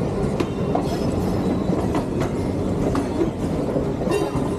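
Electric suburban multiple-unit trains running side by side at speed: a steady rumble of wheels on rail with irregular clicks over rail joints, and a brief high wheel squeal about four seconds in.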